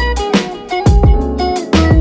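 Background music: an upbeat electronic track with a steady beat, deep bass notes and a plucked melody.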